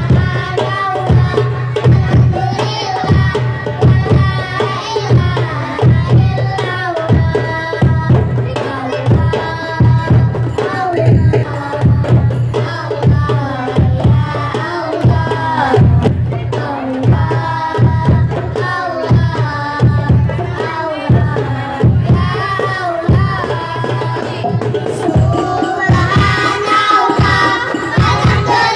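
Children's rebana ensemble: young voices singing into microphones over a steady beat of hand-struck rebana frame drums and a bass drum. The singing grows louder and higher near the end.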